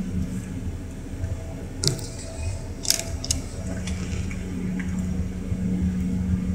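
Cabin hum of a regional jet taxiing: a steady low engine drone with one constant tone, with a few sharp clicks and rattles about two and three seconds in.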